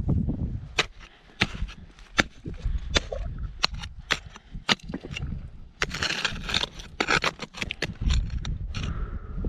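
Ice axe picks striking and catching on frozen snow and granite: sharp clicks about once or twice a second, with a dense burst of scraping about six seconds in.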